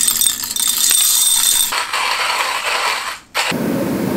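Whole coffee beans clinking and crunching in a hand burr grinder, a dense run of small hard clicks that turns rougher about two seconds in. The sound stops suddenly near the end and is followed by a steady rush of water poured from a gooseneck kettle onto grounds in a pour-over dripper.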